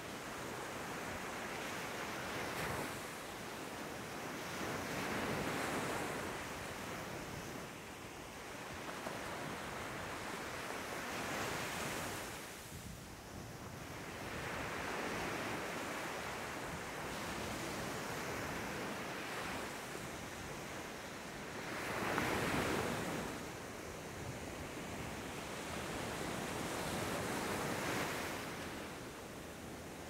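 Small waves breaking and washing up on a sandy beach. The surf swells and eases every few seconds, with the loudest wave breaking about two-thirds of the way through.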